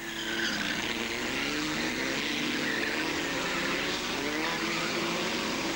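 Formula Ford 1600 racing cars' Ford Kent four-cylinder engines running hard on the track. The engine notes rise and fall in pitch under a steady wash of engine and tyre noise.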